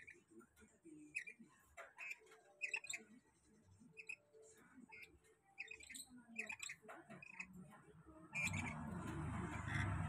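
A caged lorikeet (nuri) gives a scattered string of short, shrill chirps and squawks. A steady rushing rumble starts suddenly near the end and is the loudest sound.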